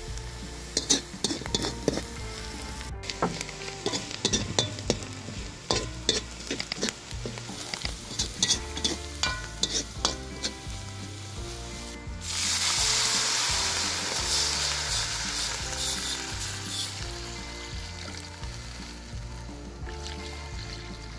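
Wooden spoon stirring and scraping tempering spices, onion and dried chilies frying in butter in a large metal wok, with sizzling. About twelve seconds in, water goes into the hot pan with a sudden loud hiss that slowly dies down.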